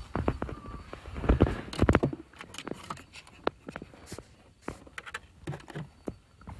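Irregular knocks, clicks and rustling of someone shifting about in a car's driver footwell, with dull thumps in the first two seconds and lighter scattered clicks after that.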